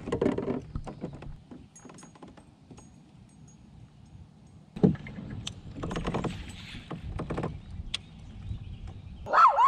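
Fishing gear being handled aboard a kayak: scattered clicks, knocks and rustles as a lure is taken from an open tackle box and rigged. A short, loud wavering tone comes near the end.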